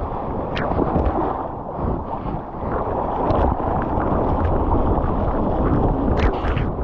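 Water rushing and wind buffeting the microphone of a board-mounted action camera as whitewater washes over the surfboard's nose, with a few sharp splashes of spray against the camera, the strongest near the end.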